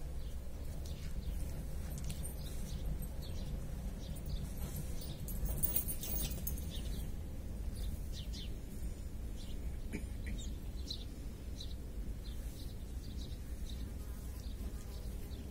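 Outdoor ambience: faint, short high chirps scattered irregularly throughout, over a steady low rumble.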